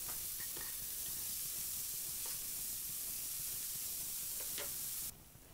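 Diced onion and julienned carrot sizzling steadily in hot oil in a frying pan, with a few faint clicks of the stirring spatula. The sizzle stops abruptly near the end.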